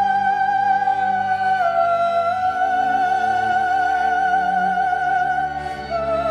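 Slow classical-style background music: a melody of long held notes with vibrato, stepping down in pitch twice, over a soft accompaniment.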